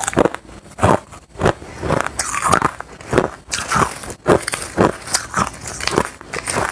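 A person biting and chewing crushed hard ice: a quick, uneven series of loud crunches, about two a second.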